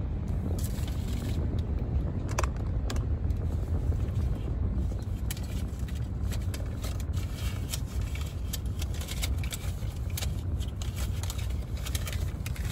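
Steady low rumble of a car heard from inside the cabin, with scattered light clicks and scrapes throughout, more of them in the second half.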